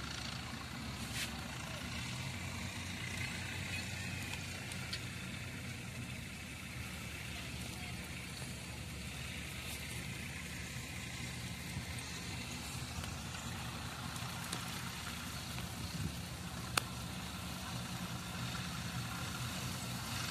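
Diesel tractor engines running steadily, heard from across a field, with one sharp click near the end.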